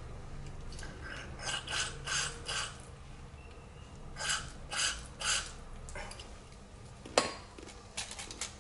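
Short hissing bursts of aerosol carburettor cleaner blown through the small passages of a Suzuki TS185ER's carburettor: four quick bursts, then three more, then two near the end. The spray making this sound as it goes through is the sign that the passage is clear. A sharp click a little after seven seconds in is the loudest sound.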